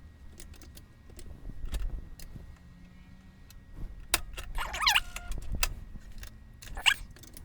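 Clicks and clatter of hands working a home-computer keyboard and the keys of a portable cassette deck while setting up a save to tape, with a short squeak about five seconds in and a sharper one near the end.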